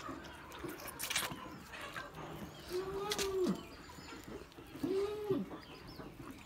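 Two short, low animal calls about two seconds apart, each holding its pitch and then dropping away at the end, with a brief rustle or click about a second in.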